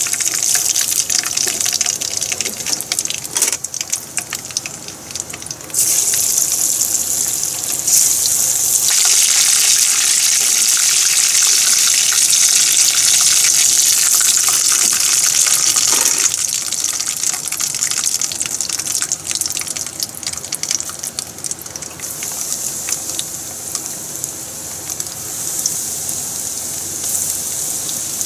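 Battered chicken pieces deep-frying in hot oil in a frying pan: a steady crackling sizzle that grows louder from about six to nine seconds in and eases off toward the end.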